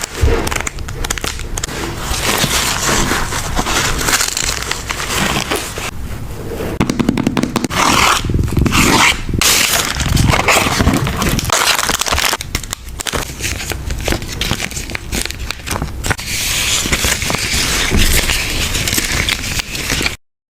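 Close-up crinkling, scraping and crackling of paper, stickers and plastic packaging being handled for journal collage, with many small sharp clicks. Cuts off abruptly near the end.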